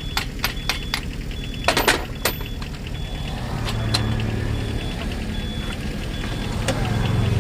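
An engine idling steadily, with several sharp metal clanks in the first two seconds or so. The engine hum grows a little louder about three and a half seconds in.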